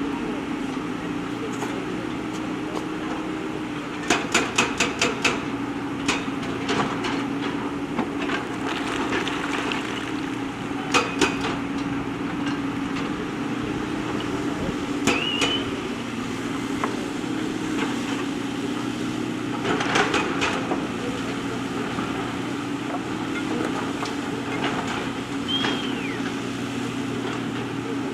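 JCB backhoe loader's diesel engine running steadily, with bursts of sharp clanks as it works, the longest a quick run of five or six, and two brief rising squeaks.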